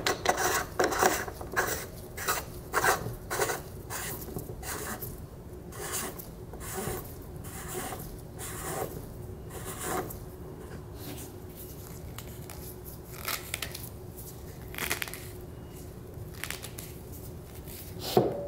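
Dry rasping and scraping of a metal part being hand-threaded onto an AAC Tirant 9 suppressor tube, with many quick scrapes and clicks in the first few seconds, then slower, sparser ones. The part is not screwing in all the way.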